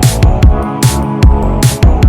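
Background music: an electronic track with a steady beat of deep kick drums and bright hi-hat hits, about two beats a second, over sustained synth notes.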